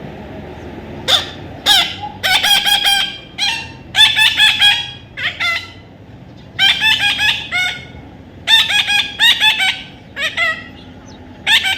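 A parrot calling in repeated bursts of quick, harsh squawks, several notes per burst, with short pauses between bursts.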